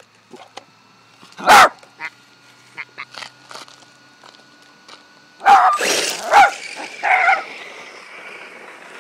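Dog barking: one loud bark about a second and a half in, then several barks in quick succession from about five and a half seconds in.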